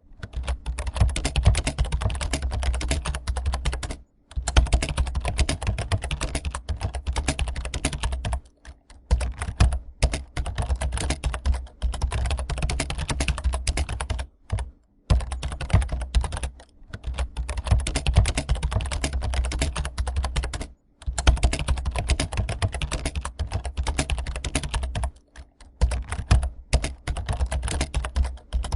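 Computer keyboard typing: a fast, dense clatter of keystrokes that keeps going, broken by brief pauses every few seconds.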